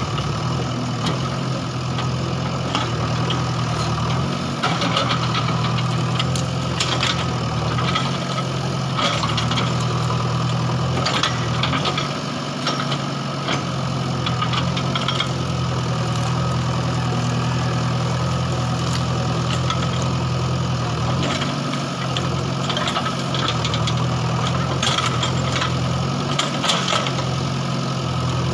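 JCB backhoe loader's diesel engine running steadily while digging, with scattered sharp knocks and clatters.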